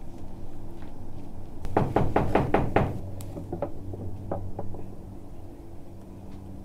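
A quick run of about six knocks, roughly five a second, then a few fainter, scattered knocks, over a low steady hum.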